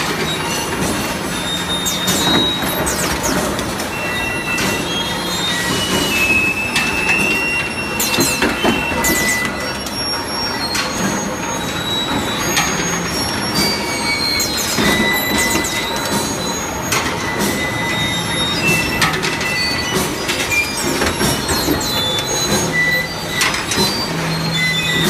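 Hot-forging machinery for steel rail clips running: a steady low machine hum under repeated metal clanks and knocks, with short high metallic squeals.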